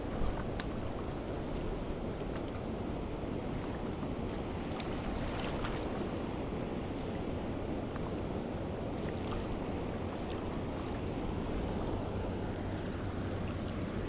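Steady rush of river water flowing below a dam spillway, with a few faint clicks.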